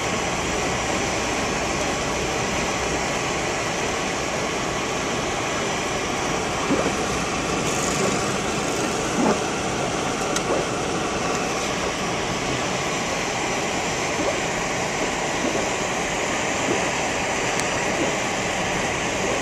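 Blizzard wind blowing steadily, an even rushing noise, with a few faint knocks.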